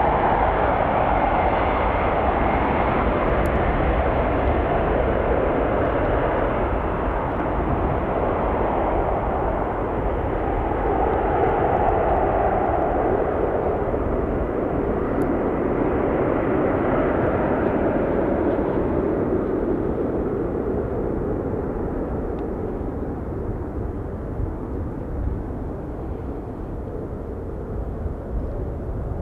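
Three-engined wide-body jet airliner at take-off power, its jet engines giving a steady loud roar as it accelerates down the runway. The roar fades and loses its higher part over the last third as the jet draws away.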